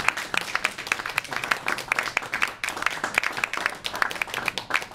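Audience applauding, many hands clapping in a dense patter that thins out near the end.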